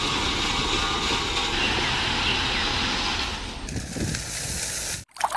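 A dump truck tipping a load of gravel: a steady, dense rush of engine noise and sliding stones, thinning a little near the end and cutting off suddenly about five seconds in.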